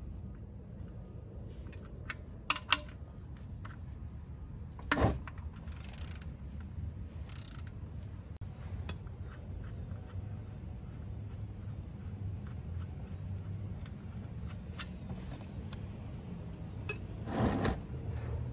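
Scattered metallic clicks and clinks of a wrench working the drain plug on a 2002 Ford Focus's oil pan as it is loosened. There are two sharp clicks a few seconds in, a thump about five seconds in, and a louder clatter near the end as the oil starts to drain.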